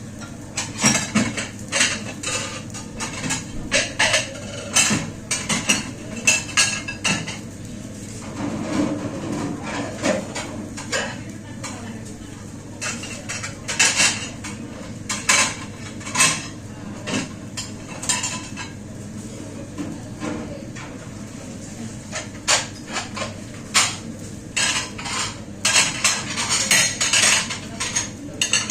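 Plates, pots and cutlery clattering and clinking as dishes are washed by hand, with irregular knocks and clinks throughout.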